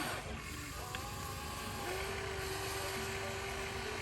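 Small electric motor and gears of a radio-controlled construction machine whining over a steady low rumble. The whine drops out briefly and comes back steady about two seconds in.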